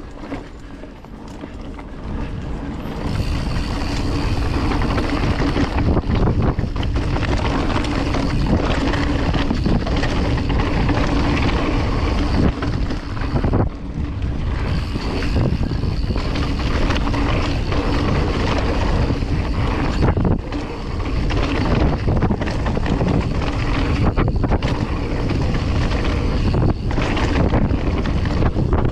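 Wind rushing over the microphone and a mountain bike's tyres rumbling on a dirt trail, with frequent knocks and rattles as the bike runs over bumps. It grows louder over the first few seconds as the bike picks up speed.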